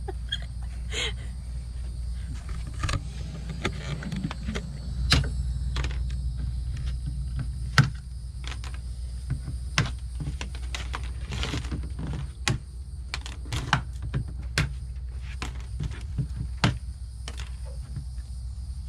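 Irregular sharp clicks and snaps of zip ties being cut off a plastic animal transport box with pliers, over a steady low rumble.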